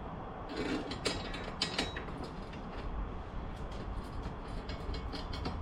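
Metal clicking and scraping of bolts and washers being fitted into a motorcycle rear luggage rack's front mounting points, with a cluster of sharp clicks about a second in and lighter clicks after.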